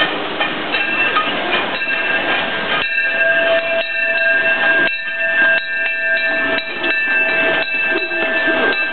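The C.K. Holliday, a 4-4-0 steam locomotive, pulls its passenger train into a station, with wheels clattering over the track. A steady, high-pitched squeal of several held tones starts about a second in and runs on as the train rolls past.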